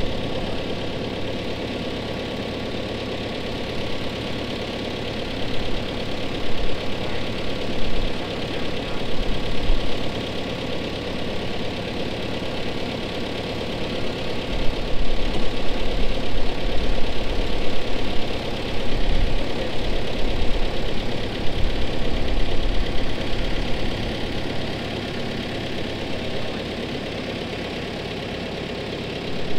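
Engine idling steadily, with a few louder stretches around the middle.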